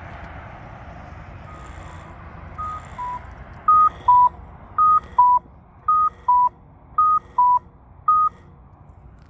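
Polara iNS accessible pedestrian signal sounding a cuckoo-style walk tone: high-low two-note chirps repeating about once a second, faint at first and loud from about four seconds in. Traffic noise runs underneath.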